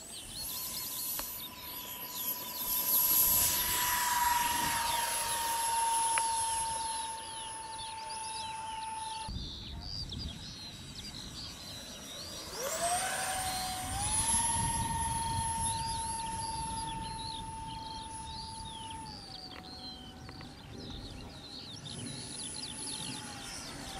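Electric ducted fan of a 3D-printed JRM-01 RC jet whining at high throttle through take-off and flight. The steady high whine is loudest as the jet passes close a few seconds in and breaks off abruptly near ten seconds. About thirteen seconds in it comes back rising in pitch, then steps down twice. Birds chirp in the background.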